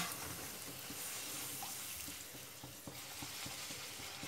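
Gol gappe puris deep-frying in hot oil in a steel kadhai over high heat: a steady, quiet sizzle with small crackles. A sharp click right at the start.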